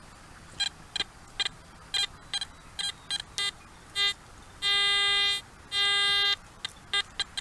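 Garrett AT Gold metal detector sounding off on a buried target, here a nail reading in the 70s and 80s. A run of short beeps gives way to two longer steady tones near the middle, then more short beeps.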